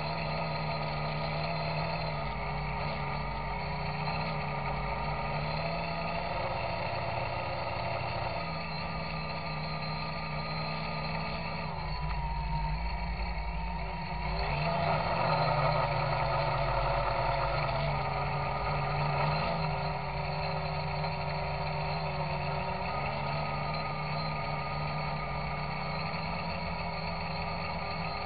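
Electrohub Spider X quadcopter's brushless motors and propellers whirring steadily, heard from a camera riding on the quad. The whine rises and falls with the throttle and swells louder for several seconds in the middle. The motors are noisy, which the owner takes for bad bearings out of the box.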